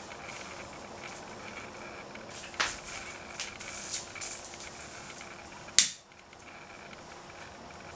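Sharp clicks of a long-nosed utility lighter being sparked to light candles: two loud clicks about three seconds apart, with a few fainter ones between, over a steady hiss.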